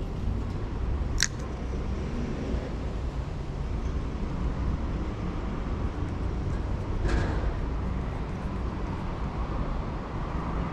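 Steady low rumble of road traffic, with a sharp click about a second in and a duller knock about seven seconds in.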